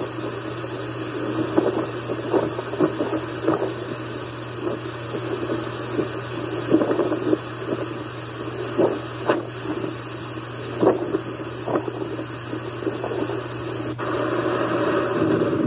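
Hurricane wind and rain: a steady rushing noise with many short gusts surging over it, and a low hum beneath. About fourteen seconds in the sound changes abruptly to a louder, fuller rush.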